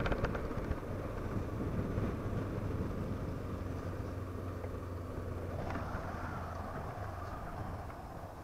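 Honda CB500F's parallel-twin engine running steadily while riding, with road and wind noise. The engine note slowly grows quieter toward the end.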